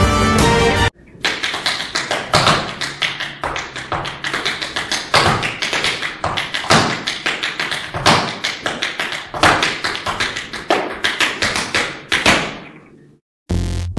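Tap shoes striking a studio floor in quick, uneven rhythms with no music behind them; the strikes fade out near the end. About a second of music plays first, and music starts again just before the end.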